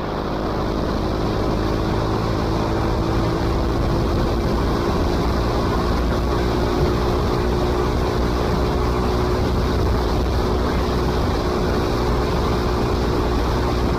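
Bajaj Pulsar NS200's single-cylinder engine running at steady revs through an aftermarket Akrapovic exhaust, an even, unbroken exhaust note.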